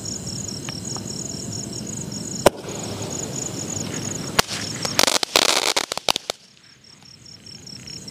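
Golden Dragon sky shot firework going off: a hissing spray, a sharp bang about two and a half seconds in, then a quick run of crackling pops around five to six seconds in. Crickets chirp steadily underneath.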